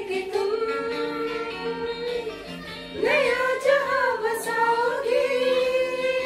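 A woman singing through a handheld microphone, drawing out a wordless melody between verses of a Hindi film song, with music underneath. The held notes waver and grow livelier about halfway through.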